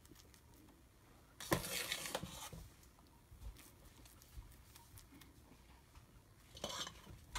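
A spoon spreading and patting soft mashed potato across a pâté chinois in an aluminium foil tray, with quiet squishing and light scraping. There is a brief louder scrape about one and a half seconds in and another near the end.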